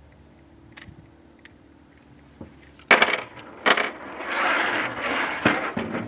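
Spent .44 Special brass cases punched out of a Smith & Wesson 629 revolver's open cylinder with the ejector rod, clattering and rattling onto the table. A few light clicks come first; the clatter starts about three seconds in and is the loudest part.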